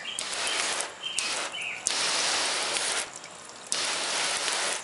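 Water spraying from a hose onto a waxed car hood, coming on and off in several bursts of about a second each with short pauses between.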